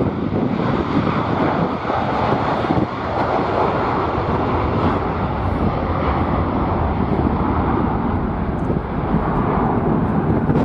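Jet airliner's engines running as it passes the viewing area, mixed with heavy wind buffeting on the microphone.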